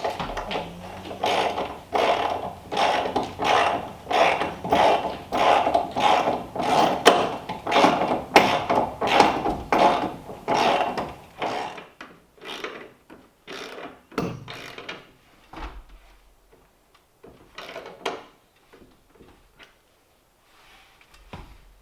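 Ratchet wrench worked back and forth in steady clicking strokes, about two a second, driving lag bolts. After about eleven seconds the strokes grow sparse and fainter.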